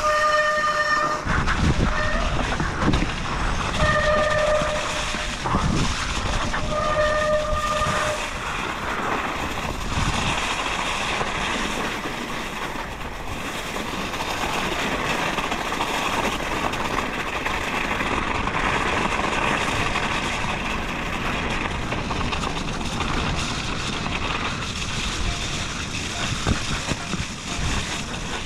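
Mountain bike disc brakes squealing in several short bursts during the first eight seconds, over the steady rushing noise of riding through mud and snow.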